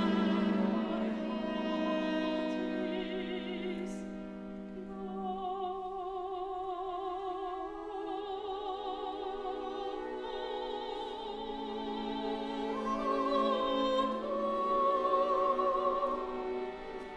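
Classical soprano singing long held notes with wide vibrato over a string orchestra, climbing to higher, louder notes near the end.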